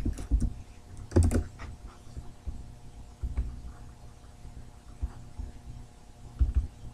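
Scattered keystrokes on a computer keyboard and mouse clicks, a few separate taps spread out over a faint steady hum.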